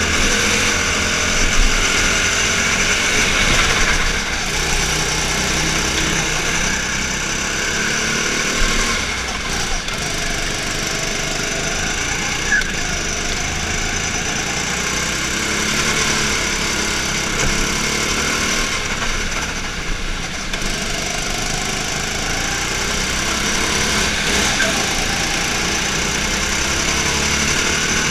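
Indoor rental go-kart engine running hard under way, heard on board, its note shifting up and down with the throttle through the corners, with other karts' engines running alongside.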